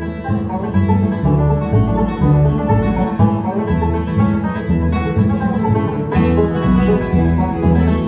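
Instrumental background music with a quick, even bass line.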